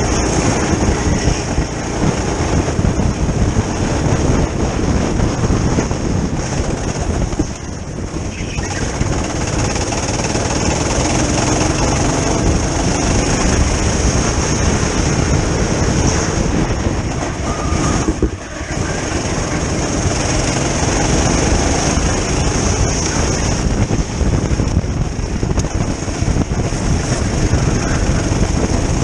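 Go-kart engine running hard, heard close up from on board the kart at speed. The level dips briefly twice, about eight seconds in and again near eighteen seconds, then picks back up.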